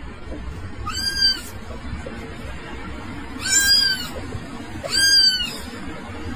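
Three high-pitched cat meows, each rising and then falling in pitch, over background music.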